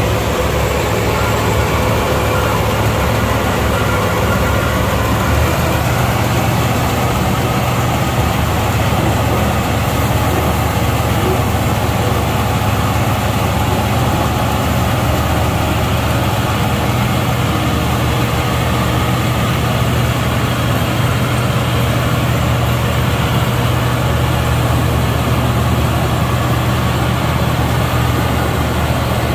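Zoomlion 100E rice combine harvester's engine running steadily with a strong low hum as the machine moves on its tracks and begins cutting into standing rice.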